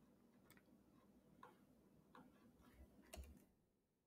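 Near silence with a handful of faint, irregular clicks from a computer keyboard and mouse, as a name is typed into a field.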